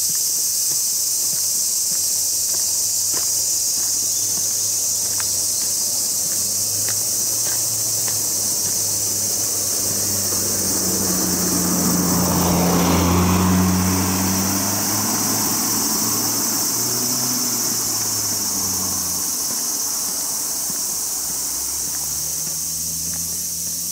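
A steady, high-pitched chorus of summer insects, with a car passing by that swells to its loudest about halfway through and then fades away.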